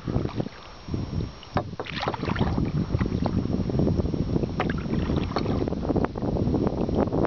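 Wind buffeting the microphone on a kayak on the river, with short splashes of water at irregular moments.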